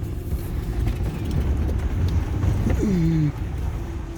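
Low, steady rumble of the Ford Econoline E-250 van's engine running while pulled over. About three seconds in comes one short call that falls in pitch.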